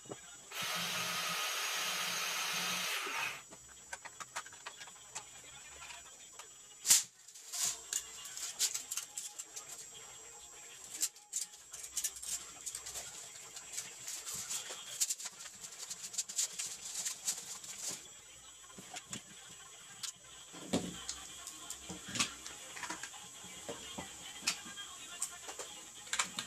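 Clicks, taps and rattles of a tape measure being handled in pieces: the steel blade, plastic case and spool knocking together. A steady rushing noise runs for about three seconds near the start, and a sharp knock comes about seven seconds in.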